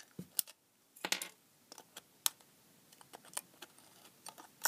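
Side cutters snipping and prising at the metal Edison screw cap of an LED filament lamp: a scatter of sharp metallic clicks and crunches at irregular intervals, the loudest about a second in.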